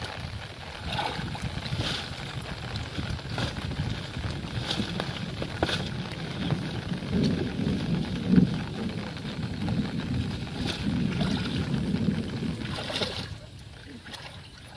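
Cut branches and brush being dragged out of a wooden boat by people wading in shallow water: twigs clattering and knocking, with water sloshing and wind on the microphone. There is one loud knock about eight seconds in.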